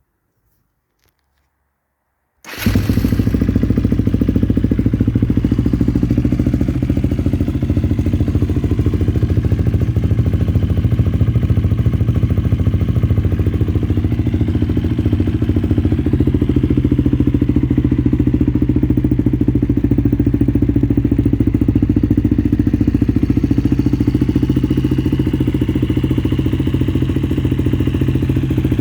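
KTM EXC-F 250 single-cylinder four-stroke enduro engine with an Akrapovic exhaust, cutting in abruptly about two and a half seconds in and then running steadily at idle, its pitch and level holding even with no revving.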